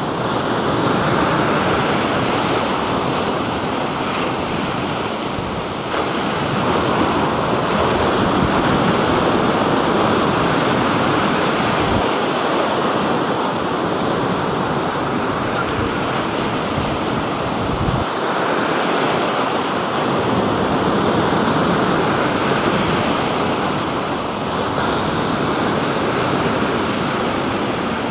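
Black Sea surf: waves washing onto the shore in a steady rushing wash.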